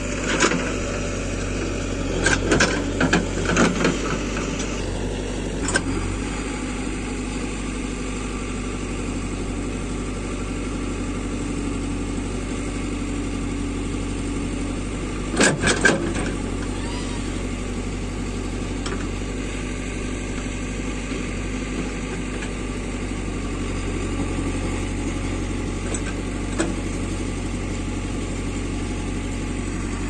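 JCB 3DX backhoe loader's diesel engine running steadily while the rear backhoe arm digs in rocky soil. Short clanks and knocks of the bucket against stones come in a cluster about two to four seconds in and again about fifteen and a half seconds in, as soil and rocks are dumped.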